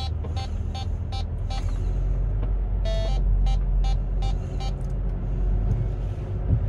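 Mercedes V-Class parking sensors beeping at about two to three beeps a second during low-speed maneuvering, with a longer, lower warning tone about three seconds in, then more beeps. The van's engine runs with a low rumble underneath.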